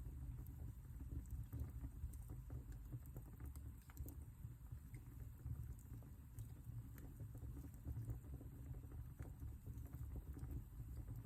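Wood fire burning in a fireplace: a low, steady rumble of flames with frequent small crackles and pops scattered throughout.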